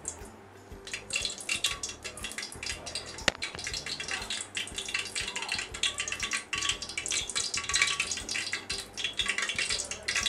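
Cooking oil heating in an aluminium pot, sizzling with dense irregular crackles and pops as it gets hot, with one sharp click about three seconds in.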